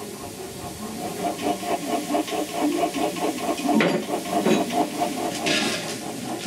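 Small industrial steam tank locomotives standing in steam, hissing steadily, with a sharp knock about four seconds in and a louder burst of steam about five and a half seconds in.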